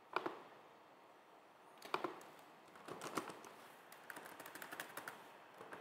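Faint keystrokes on a computer keyboard: a few separate clicks, then a quick run of taps about two thirds of the way in.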